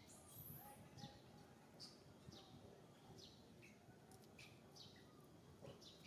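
Faint, short, high-pitched animal chirps, each dropping in pitch, repeating about once or twice a second over low outdoor background noise.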